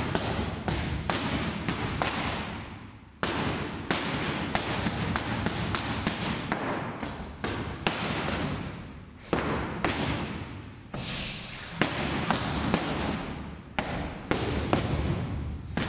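Boxing gloves smacking into focus mitts in quick combinations of several punches, with short pauses between runs. Each hit is sharp and echoes briefly in the gym.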